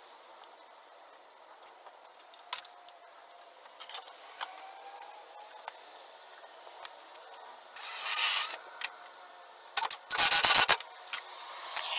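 Cordless drill running in two short bursts, boring into a pine 2x4 leg: one about 8 seconds in, and a louder one a little later. Before these come light clicks and knocks of the wood pieces being handled.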